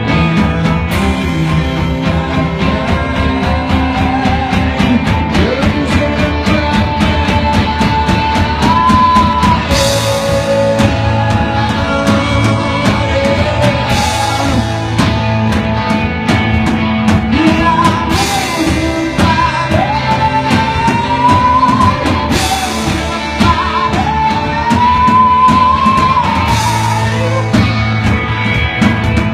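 Live rock band playing: electric guitars and a drum kit with regular drum hits and a cymbal crash every few seconds, under a male lead vocal.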